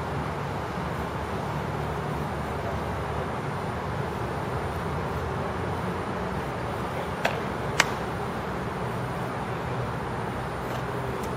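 Two sharp clacks about half a second apart, a little past the middle, as practice swords strike each other in sparring, the second clack louder. Under them runs a steady outdoor background rumble like distant traffic.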